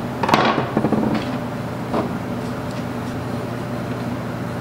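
Metal parts and hand tools clanking and knocking against the overdrive housing and workbench: a cluster of sharp metallic knocks with a short ring about half a second in, then lighter taps around one and two seconds, over a steady low hum.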